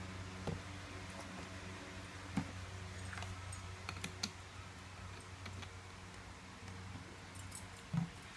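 Scattered light clicks and taps from a plastic drink bottle and its screw cap being handled, over a steady low hum. A thump near the end as the bottle is set down.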